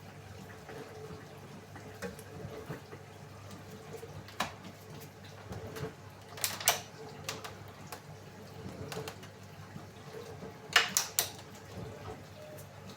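Samsung AddWash WW70K5410WW washing machine draining: a low steady hum with water trickling and dripping inside. A few sharp clicks or knocks break in, the loudest in quick clusters a little past halfway and again near the end.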